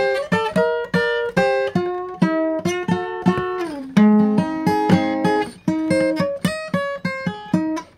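Acoustic guitar playing plucked and strummed chords, each attack ringing and dying away before the next, with one note sliding down in pitch about three seconds in.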